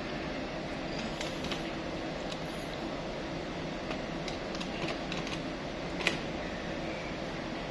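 Keys of a desktop calculator pressed with a pen tip as a multiplication is keyed in: about ten irregular clicks, the sharpest about six seconds in. A steady background hum runs underneath.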